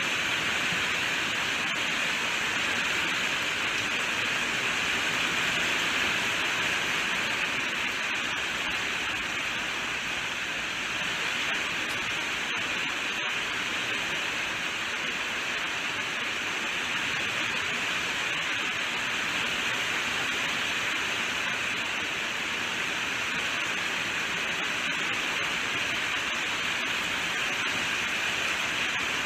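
Steady heavy rainfall: an even, unbroken hiss of falling rain.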